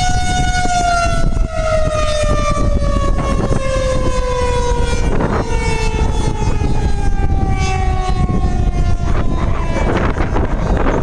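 Outdoor civil-defense tornado siren winding down: a steady wail that starts sliding slowly lower in pitch after about half a second and fades out near the end. A constant low rush of noise lies underneath.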